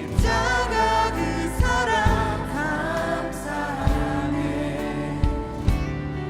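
Contemporary worship band playing a song with drums, sustained keyboard chords and voices singing together.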